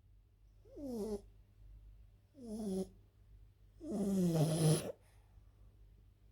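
French bulldog snoring: three pitched snores about a second and a half apart, each falling in pitch, the third the longest and loudest.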